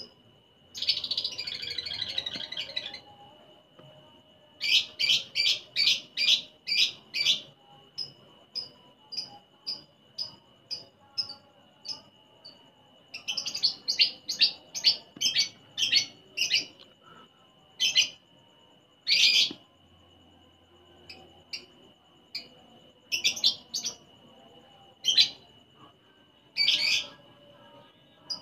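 Male lovebird calling nonstop: a burst of rapid chatter, then runs of sharp, loud chirps several a second, with softer, evenly spaced chirps between them. This unbroken calling is what Indonesian keepers call a 'konslet' lovebird. A steady high thin tone runs underneath.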